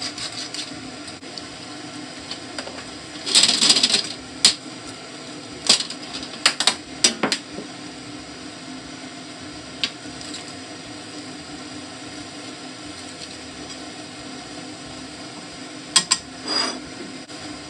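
A spatula stirs and tosses yakisoba noodles through a cream sauce simmering in a frying pan. Its strokes scrape and click against the pan about three to four seconds in, again around six to seven seconds, and near the end, over a steady hum.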